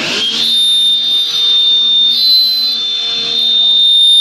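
Electric bamboo-cutting machine of a toothpick-making line running, a steady high-pitched whine over a lower hum, settling in the first half-second after a noisy start.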